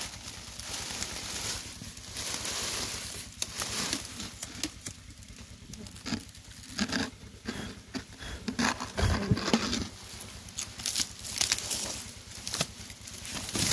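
Dry grass and reed stalks rustling and crackling, with irregular snaps and scrapes as they are pushed aside by hand and blade.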